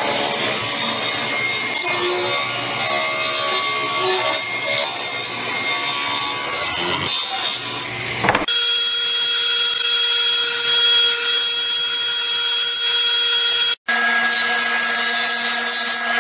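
Table saw running and cutting through boards for about eight seconds. Then a benchtop thickness planer runs with a steady whine, its pitch shifting slightly after a short break near the end.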